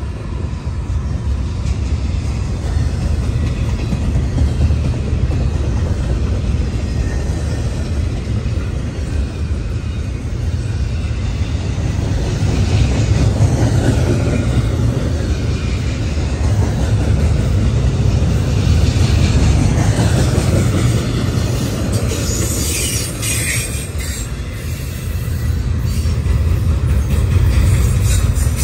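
Double-stack intermodal freight train rolling past at close range: a steady heavy rumble of the well cars on the rails, with wheel clatter. Near the end a thin, high wheel squeal joins in.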